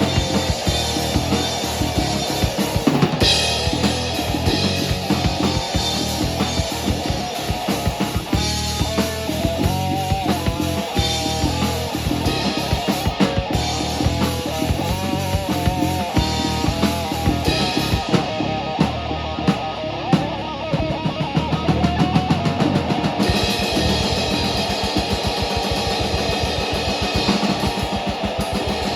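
A live band playing loud, with a drum kit keeping a steady beat under guitar. A little past the middle the cymbals drop out for a few seconds, then come back.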